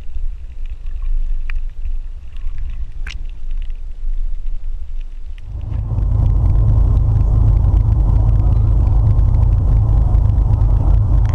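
Muffled low rumble from an action camera held underwater while snorkelling, with a few faint clicks. About halfway through it cuts to a boat's engine running steadily, a loud low hum.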